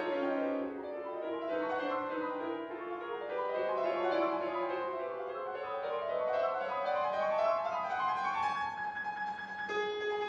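Grand piano played solo: quick, dense running figures. A line sinks and then climbs steadily upward over several seconds, and near the end it gives way to a freshly struck, held chord.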